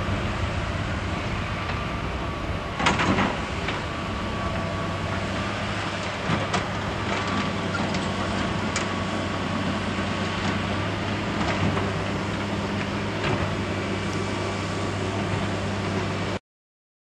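Twin GE CF34 turbofans of a Canadair CRJ-200 regional jet at takeoff power: a steady jet noise with a thin whine as the aircraft rolls and climbs away. A few sharp clicks come along the way, and the sound cuts off abruptly near the end.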